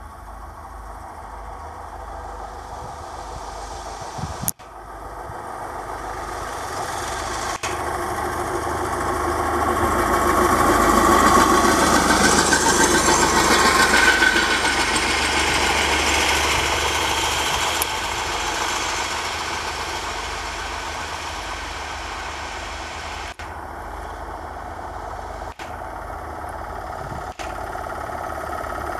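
Small engines of motorised rail inspection trolleys running along the track, swelling to a peak about halfway through as one passes close, then fading. A sharp click sounds about four seconds in.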